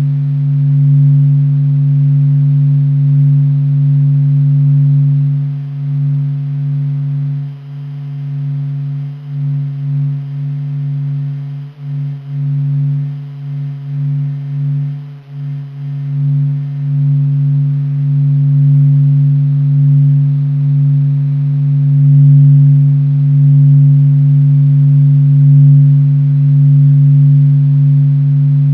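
Sonification of the Sun's vibrations: a loud, deep, steady hum with an overtone an octave above. It wavers and dips in loudness through the middle, then holds steady again.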